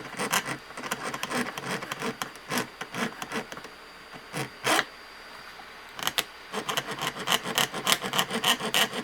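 Half-round hand file rasping back and forth on a sterling silver ring band in quick repeated strokes, several a second. The strokes stop for about two seconds around the middle, apart from a single stroke, then start again.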